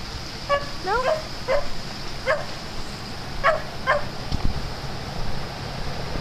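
A dog giving short, high-pitched yips and barks, about six of them over the first four seconds, one of them rising in pitch about a second in.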